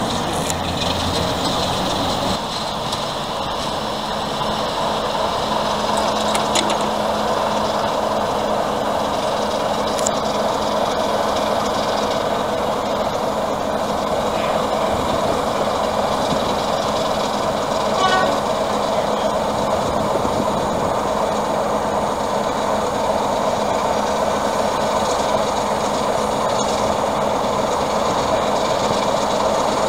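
BR Class 33 diesel locomotive running slowly past, its engine sound steady throughout. A short run of clicks comes about two-thirds of the way through.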